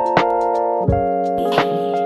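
Background music: sustained keyboard chords over a soft beat, with a hissing percussion layer coming in about two-thirds of the way through.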